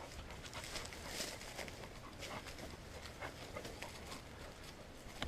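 Faint, irregular footsteps with rustling.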